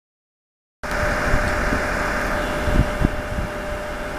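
Silent at first, then, from inside a diesel railcar standing at a station, a steady hum of the idling engine and air conditioning with one constant tone. A few dull knocks come through it.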